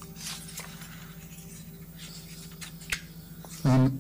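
Quiet hearing-room tone: a steady low hum with faint rustles and small clicks, one sharper click about three seconds in. A voice begins just before the end.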